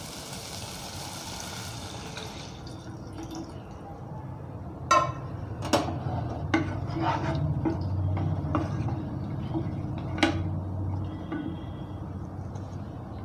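Sautéed tomato and spice mixture sizzling faintly in a nonstick pot, then tamarind water poured in and stirred, with a low churning of liquid and a spoon knocking against the pot several times.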